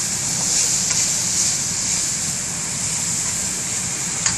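Food sizzling in a hot sauté pan as it is stirred, a steady hiss over a low hum, with one sharp knock near the end.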